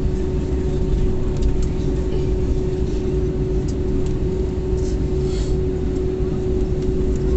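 Cabin noise inside an Airbus A321neo on the ground after landing: a steady low rumble with a constant hum. There are a few faint ticks and a brief hiss about five seconds in.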